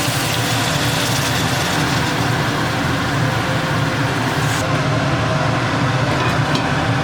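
A loud, steady motor-like drone with a low hum and a hiss; the highest part of the hiss drops away about two-thirds of the way through.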